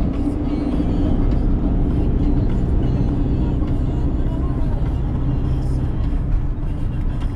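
Steady low rumble of road and engine noise inside a car driving along.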